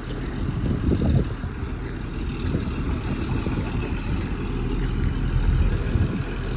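Diesel engine of a Shuttlewagon railcar mover running as it moves slowly along the track, a continuous uneven low rumble.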